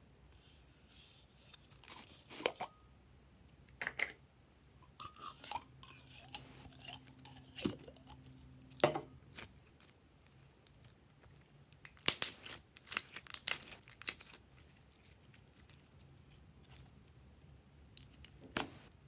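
Hands squeezing, pressing and pulling glossy slime, making irregular sticky crackles and pops, with a dense run of them a little past halfway and one sharp pop near the end.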